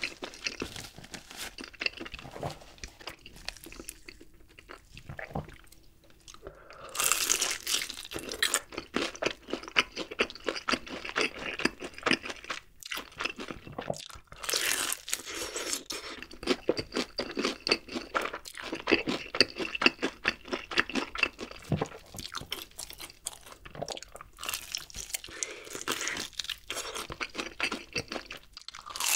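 Close-miked biting and chewing of a crispy, spicy-coated fried chicken leg, the crust crunching and crackling in quick dense clicks. Chewing is softer for the first several seconds, then loud crunching starts about seven seconds in and goes on with brief pauses.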